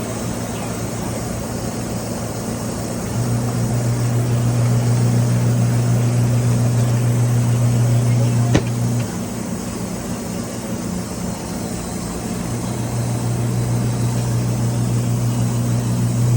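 Twin-tub portable washing machine running: a steady motor hum over a churning noise, growing stronger and weaker every few seconds, with a single click about eight and a half seconds in.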